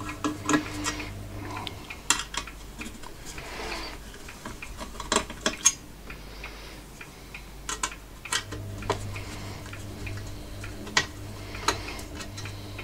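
Small metal screws and parts clicking and clinking against the sheet-metal case of a power supply as they are taken out and handled, in sharp, irregular clicks.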